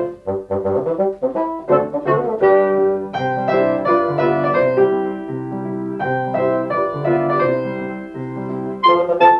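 Instrumental background music: piano and brass playing a melody over a moving bass line.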